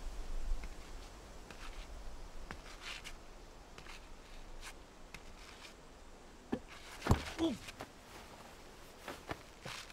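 Quiet outdoor ambience with light footsteps on a paved path, then a thump about seven seconds in as a man sits down heavily on a wooden park bench.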